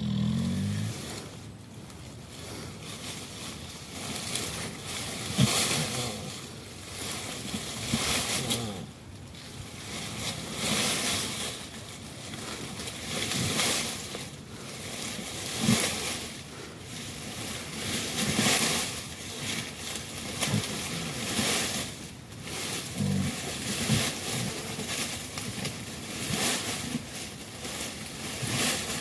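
Wet squelching, sloshing and tearing in irregular bursts every second or two, as two Komodo dragons bite and pull at a wild boar carcass lying in a mud puddle.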